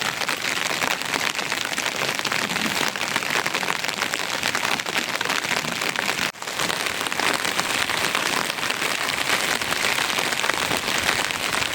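Heavy rain falling, a steady dense patter of drops that briefly cuts out about six seconds in.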